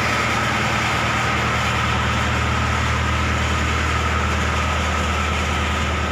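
Water pump of a riverside pumping station running noisily: a steady low mechanical hum with a high whine on top.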